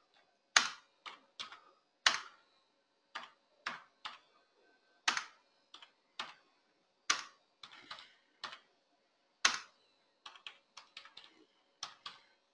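Computer keyboard being typed on: single keystrokes at a slow, uneven pace, roughly two a second, with short pauses between some and a quicker run of taps near the end.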